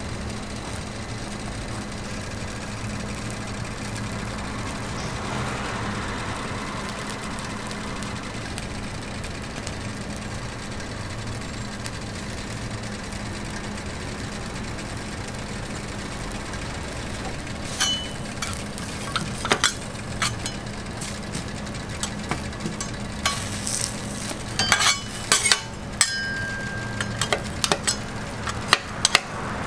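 A steady low machine hum with faint griddle sizzle. From a little past halfway, a metal spatula clinks and taps sharply again and again against square metal egg molds on a flat-top griddle.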